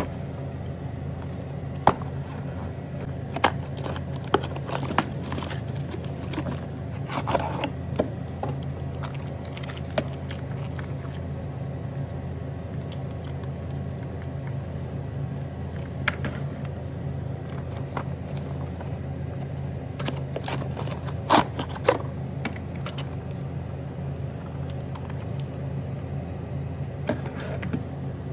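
Plastic toy cars and their cardboard box being handled: scattered taps, clicks and scrapes over a steady low hum.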